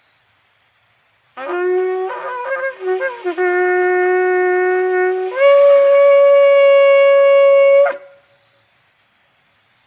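Shofar blown: a low note starts about a second and a half in and breaks into a few short, wavering notes, then holds steady. It steps up to a higher note, held for a couple of seconds, then cuts off.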